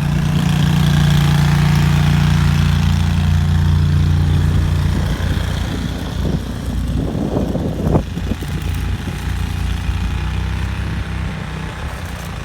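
An engine running steadily at idle, a low even hum. About five seconds in it drops in level, and there is a brief rough clatter a little later.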